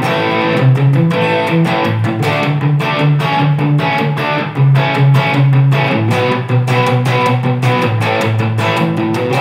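Electric guitar played through the overdriven drive patch of a floor multi-effects processor: a busy run of short picked notes and chord stabs, several a second, over ringing low notes.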